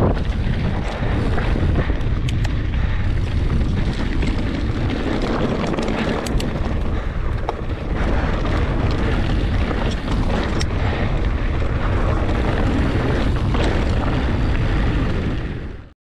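Wind buffeting the camera microphone as a mountain bike rolls fast down a loose, rocky track, with tyres crunching over stones and scattered sharp clicks and rattles from the bike. The sound fades out quickly near the end.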